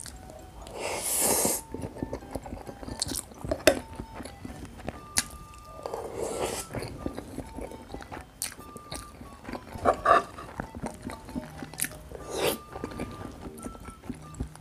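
Background music over close-up mukbang eating sounds: chewing and biting of rice and sauce-covered food, with scattered short clicks.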